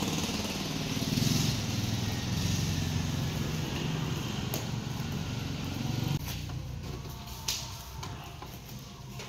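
Small motorbike engine idling steadily, then cut off abruptly about six seconds in; a couple of sharp knocks follow as the load is handled.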